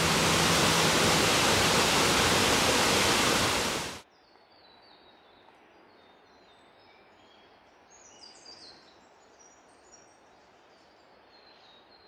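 Waterfall pouring into a pool with a steady rush that cuts off abruptly about four seconds in. After that it is very quiet, with scattered short, high bird calls.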